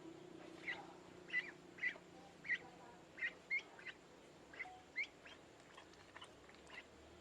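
Ducklings peeping: a series of short, high peeps, some rising in pitch, about two a second, growing sparser toward the end.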